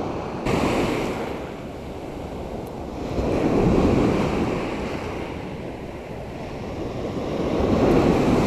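Surf breaking on a sandy Black Sea beach, each wave swelling and fading, about four seconds apart: one about a second in, one about four seconds in and one near the end.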